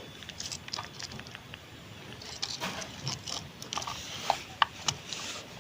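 Irregular light clicks and taps, with a few sharper clicks between about four and five seconds in.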